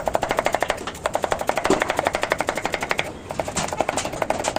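Rapid, even chopping of cabbage on a cutting board, about ten strokes a second. There are two short breaks, about a second in and about three seconds in.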